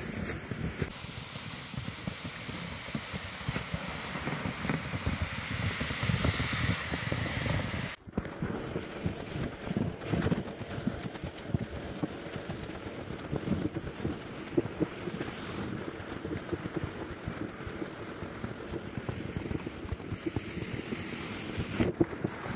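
Wind buffeting the microphone: a steady rushing hiss with an uneven, gusty low rumble. The sound drops out for a moment about eight seconds in.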